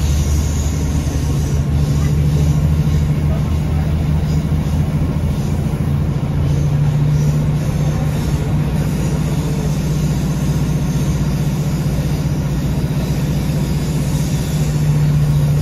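Northern Class 150 diesel multiple unit heard from inside the carriage while under way: the underfloor diesel engine running with wheel and rail noise. A deep engine drone eases off after about five seconds while a steady hum carries on.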